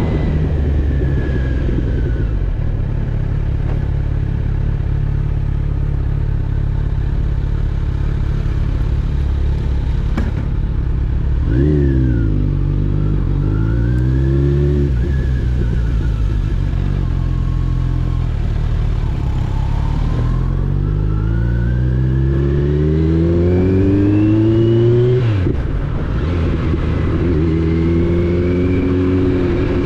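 Kawasaki Z900 inline-four motorcycle engine running under way. About 11 seconds in it revs up sharply and climbs in steps through a couple of gears. From about 20 seconds it rises steadily in pitch for some five seconds, then drops suddenly as the throttle closes or a gear changes, before running steady again.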